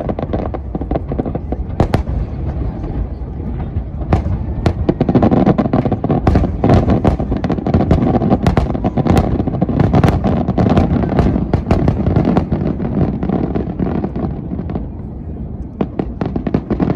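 Fireworks display: a rapid barrage of aerial shells bursting, many sharp cracks over a continuous rumble. The barrage thickens about five seconds in and thins out near the end.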